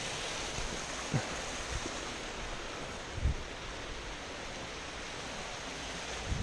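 Steady rush of a mountain stream cascading over rocks in a small waterfall below, with a few faint low knocks.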